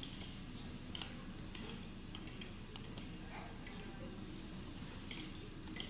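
Metal spoon and fork clinking and scraping against a plate in light, scattered clicks every second or so, over low steady background noise.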